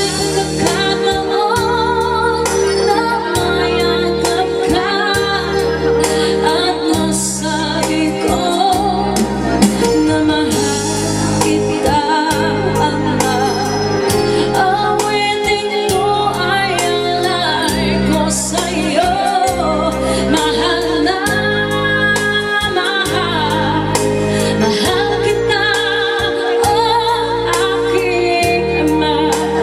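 Music: a song with a singing voice over a steady bass line.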